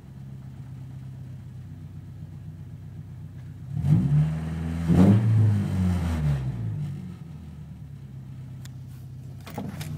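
1994 Toyota pickup's engine with aftermarket exhaust and intake, heard from inside the cab: idling, then revved twice about four and five seconds in, falling back to idle.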